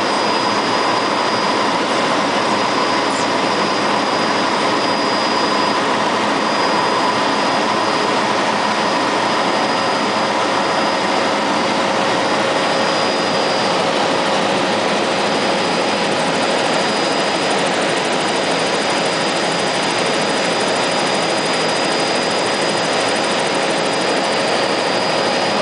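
Helicopter in flight heard from inside the cabin: loud, steady engine and rotor noise with several constant whining tones over a dense rushing hiss.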